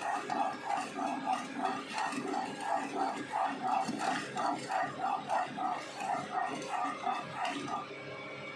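A dog barking rapidly and without a break, about four to five barks a second, stopping shortly before the end.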